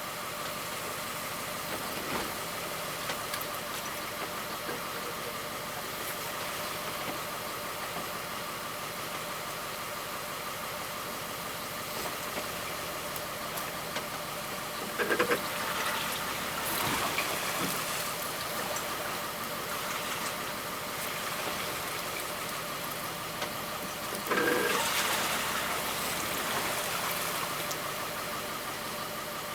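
Steady motor drone on a fishing boat, with two short, louder noises about halfway through and again about three-quarters of the way through.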